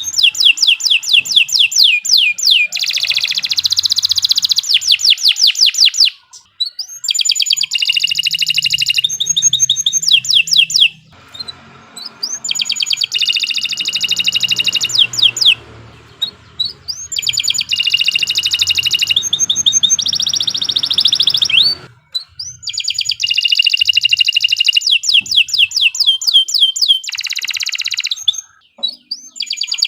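Domestic canary singing a long, loud song of fast trills and rolls, each phrase a rapid run of repeated sweeping notes, broken by brief pauses about every five or six seconds.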